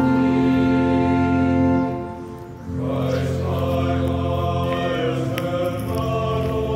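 Background music of slow, held choral-style chords; it fades down about two seconds in and picks up again with a new chord.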